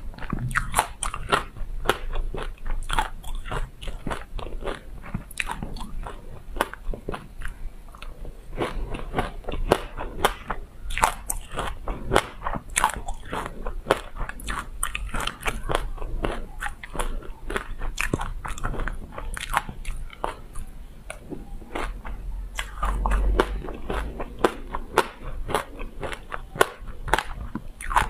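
Close-miked chewing of a mouthful of passion fruit pulp and black sesame seeds: a dense, continuous run of crisp crunches and clicks as the seeds are bitten.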